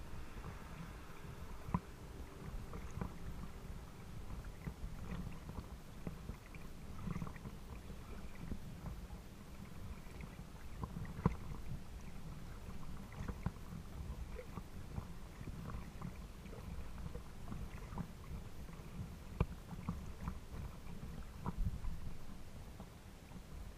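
Lake water lapping against a small boat or float just under a low-mounted action camera: a steady low rumble with irregular small splashes and knocks.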